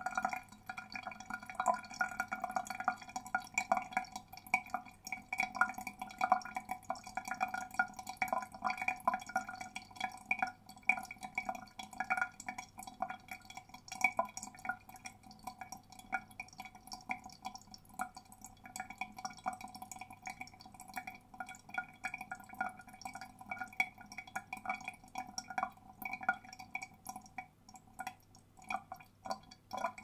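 Water draining down a plughole: a continuous trickle with a ringing, hollow tone and many small irregular drips and plinks.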